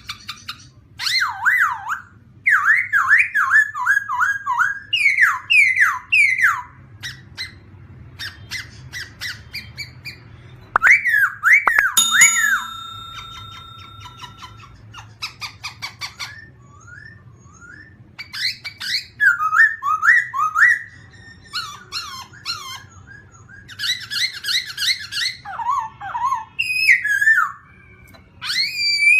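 Songbirds singing in bursts of rapid, sweeping whistled phrases, each a string of quick up-and-down notes, with short pauses between them and one held steady note near the middle. A faint low hum runs underneath.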